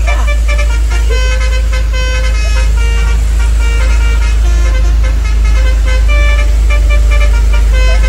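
Truck basuri horn playing a tune of short, rapidly changing notes over the steady low rumble of the truck's engine, heard from inside the cab.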